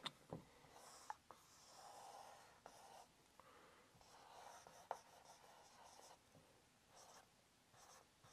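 Faint strokes of a felt-tip marker drawing on a board: several short scratchy strokes with a few light taps of the tip.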